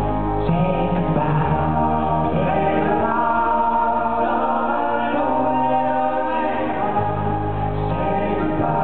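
A male lead singer with a close-harmony male vocal group singing a slow song, backed by acoustic guitar. The group sustains chords whose low notes shift every second or two.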